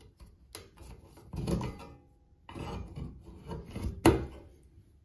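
Windshield wiper blade being worked on its wiper arm by hand: several bouts of plastic-on-metal scraping and rubbing. A single sharp click about four seconds in, as the blade snaps into place on the arm's hook.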